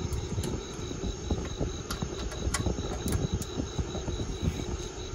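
Socket and extension being turned by hand on an oil drain plug: scattered light metallic clicks and low handling rustle. Crickets chirp steadily behind it.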